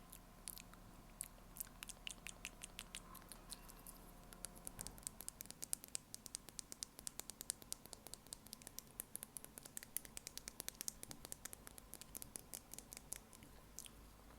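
Quiet, rapid ASMR clicking sounds close to the microphone: sparse at first, then coming several a second from about five seconds in.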